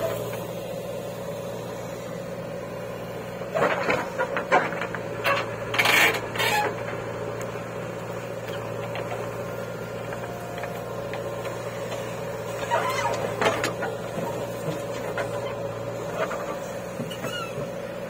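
JCB 3DX backhoe loader's diesel engine running with a steady drone while its hydraulic arm swings and digs. Short clanks and rattles of the bucket and boom come several times, the loudest about six seconds in.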